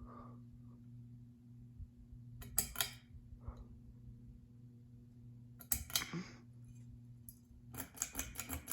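Three short bursts of sharp clicking and rattling, about three seconds apart, over a steady low hum.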